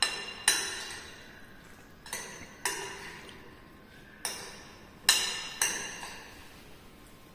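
Metal spoon clinking against a ceramic bowl while mixing a salad: about seven bright, ringing clinks at irregular intervals, each dying away quickly.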